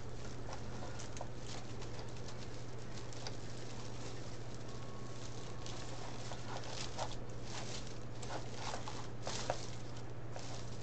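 Plastic deco mesh crinkling and rustling in scattered short crackles as it is handled and tucked into a wreath, over a steady low hum.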